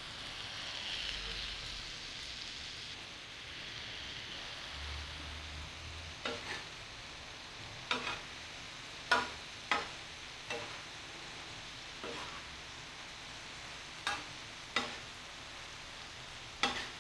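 Cubed liver, tomato and onion sizzling in mustard oil on a tawa griddle while being stirred. The sizzle is a bit stronger in the first few seconds. From about six seconds in, the spatula knocks sharply against the pan about ten times.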